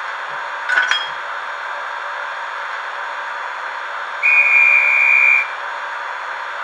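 Sound decoder in an H0 model of the ÖBB Taurus electric locomotive, played through its small onboard speaker while the engine stands still. A steady hiss of idling running noise runs throughout, with a brief double click about a second in. Past the middle, a high steady whistle tone sounds for just over a second.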